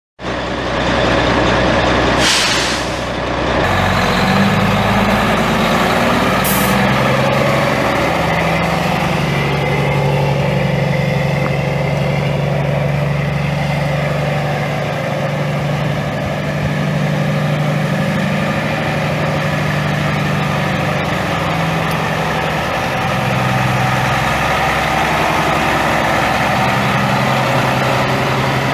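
Caterpillar 3176 10.3-litre inline-six turbo diesel of a Kenworth semi truck running steadily. About two seconds in there is a short burst of air hissing from the truck's air system.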